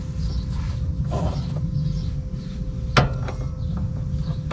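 A single sharp knock about three seconds in, over a steady low rumble.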